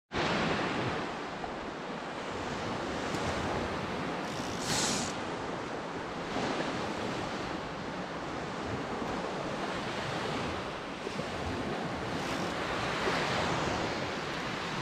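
Steady wash of sea water and wind buffeting a camera held just above the sea surface, with a brief brighter hiss about five seconds in.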